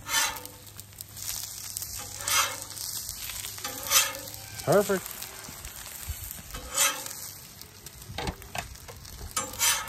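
Fried eggs sizzling on a Blackstone 28-inch steel flat-top griddle, with about five loud scrapes of a metal spatula sliding across the griddle plate as the eggs are worked loose and flipped.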